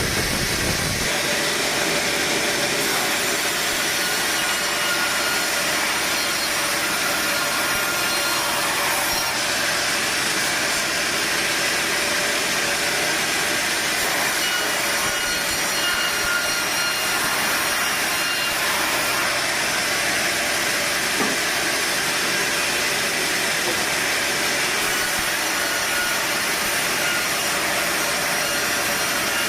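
Sawmill saw running steadily as it cuts through a log, a continuous noisy hiss with a faint steady whine.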